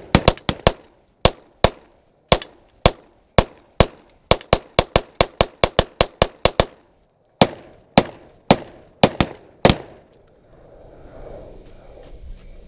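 A rapid string of about two dozen gunshots from a firearm. They come unevenly at first, then quicken to a fast run of about five shots a second. After a short pause a few more shots follow, and the firing stops about ten seconds in.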